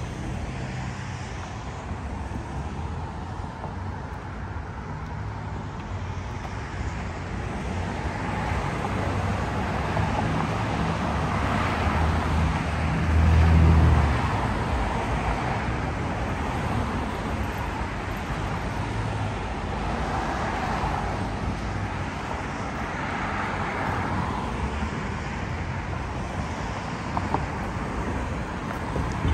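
City street traffic: cars driving past with steady engine and tyre noise. About halfway through, a vehicle passes close with a deep rumble.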